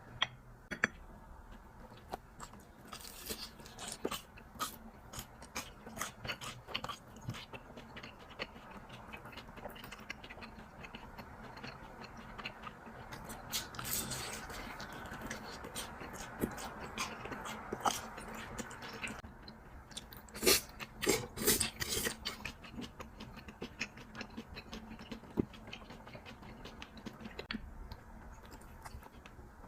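Chewing of something crunchy: a run of irregular crunches and bites, thickest and loudest about two thirds of the way through.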